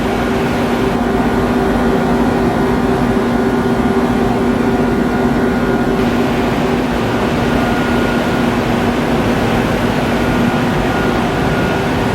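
Okuma ES-L10 CNC turning center running: a steady machine hum with a few held tones, the lowest of which fades out near the end.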